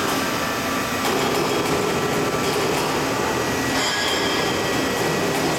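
Single-screw polystyrene sheet extrusion line running, a steady mechanical din with a faint steady high whine.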